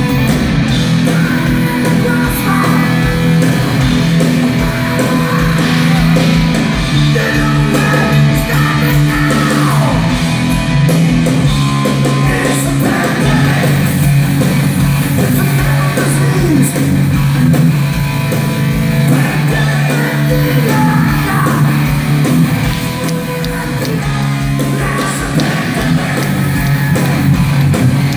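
Heavy metal band playing live: distorted electric guitars, bass and drums, with a lead voice singing over them.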